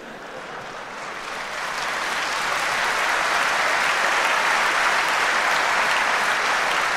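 Audience applause, building up over the first two seconds and then holding steady.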